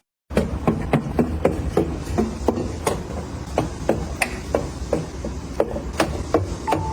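A quick, irregular run of light knocks and clicks, about two to four a second: small hard objects being handled and set down.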